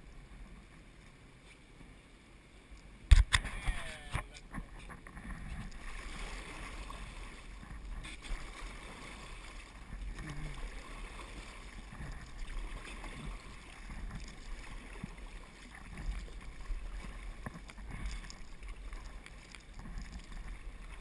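Water splashing and washing against an inflatable paddle raft as it is paddled downriver, quiet at first and fuller and uneven from about five seconds in. A single sharp knock comes about three seconds in.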